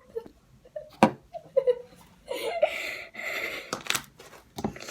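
Giggling and breathy laughter in short bursts, with a sharp click about a second in and a few knocks near the end.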